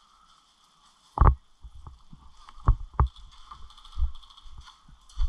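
A few dull, irregular thumps and knocks, the loudest about a second in, over a faint steady hiss.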